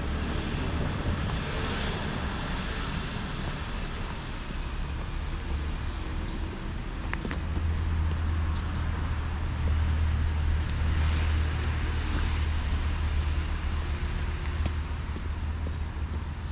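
Wind rumbling on the microphone over a steady outdoor hiss, the rumble growing stronger from about seven seconds in.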